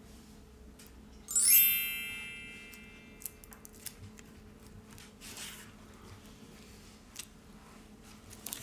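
A bright chime-like ringing about a second in: many tones strike together with a quick upward sweep and die away over about a second and a half. Faint scattered clicks and taps come before and after it.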